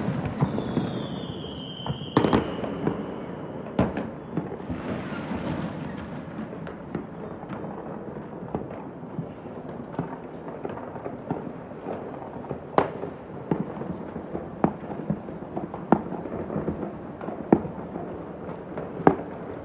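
Many fireworks going off across a city: a continuous rumble of overlapping bangs, with sharper cracks every second or so. A high whistle starts about half a second in and falls slightly over a couple of seconds.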